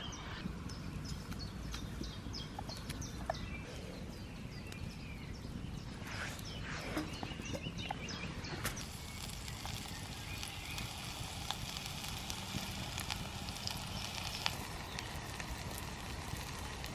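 Bone broth fat sizzling and crackling in a pan over a wood fire, a steady hiss dotted with small pops, with birds chirping in the background.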